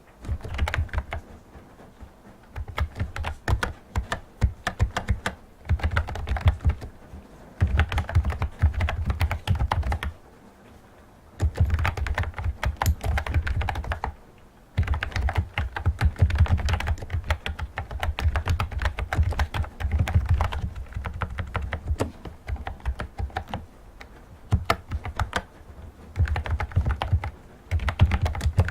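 Fast typing on a typewriter-style Bluetooth keyboard: rapid runs of key clicks lasting a few seconds each, broken by short pauses.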